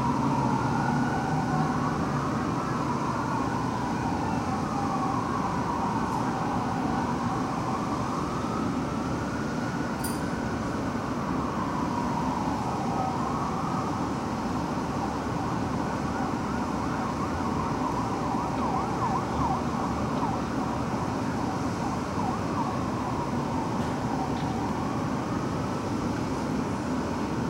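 Fire truck siren wailing, rising and falling slowly and repeatedly, over a low rumble of engines and traffic.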